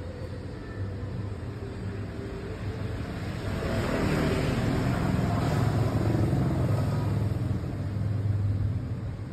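A motor vehicle passing: a steady low engine hum that swells for several seconds in the middle and fades near the end.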